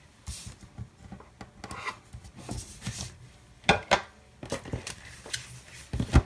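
A paper planner being handled and slid across a tabletop: soft rubbing and rustling of paper with scattered clicks, two sharp knocks just under four seconds in and another near the end.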